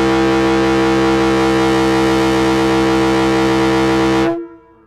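Nathan M-series locomotive air horn blowing a loud, steady chord of several tones, which cuts off about four seconds in. It is being field-tuned, and the note sounds close enough to pitch.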